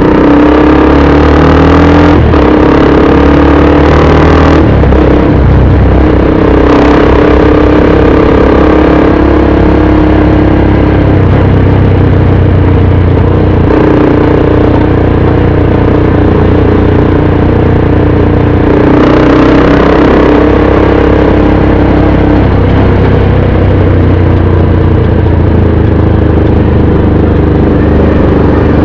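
Motorcycle engine running under way in city traffic, its pitch rising with the throttle in the first few seconds and then holding steady, over road and wind noise.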